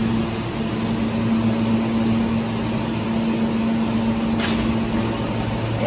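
New York City Subway J train of R160 cars standing at the platform, its onboard equipment giving a steady hum with no change in pitch. A brief hiss comes a little past halfway.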